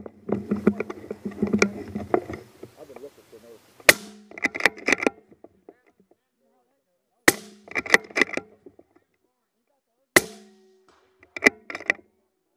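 Three shots from an Accuracy International AE MK3 bolt-action rifle in .260 with a YHM titanium suppressor, about three seconds apart. Each shot is followed by a quick rattle of clicks as the bolt is worked for the next round.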